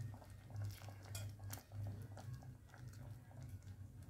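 Faint, scattered soft pops and ticks from a pan of thick tomato-and-cashew gravy at the boil as paneer cubes are dropped in one by one, over a low steady hum.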